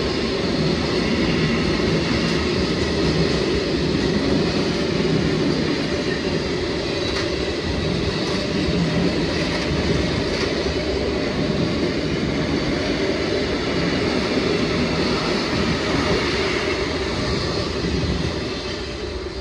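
A train passing, wheels running on the rails with a loud, steady rumble that falls away near the end.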